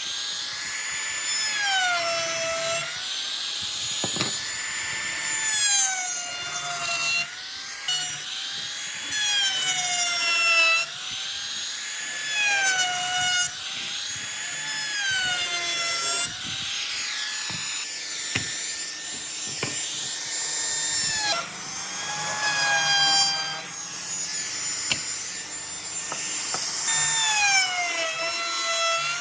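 A high-speed power tool cutting wood. Its motor whine dips in pitch and recovers every two to three seconds as it is pressed into the work, over a scraping, rasping cutting noise.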